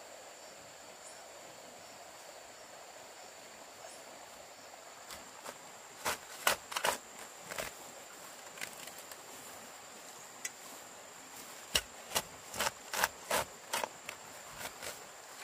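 Two runs of sharp knocks, one about six seconds in and a longer one about twelve seconds in, over a steady high-pitched insect drone.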